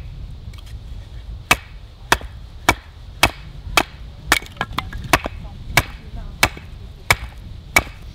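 A wooden baton knocking on the back of a hatchet head about a dozen times, sharp evenly spaced strikes roughly two-thirds of a second apart, driving the blade down through a split of firewood to make kindling.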